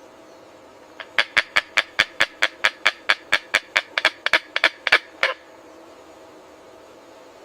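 A bird calling in a rapid run of about twenty short, sharp, evenly spaced notes, about five a second, lasting some four seconds.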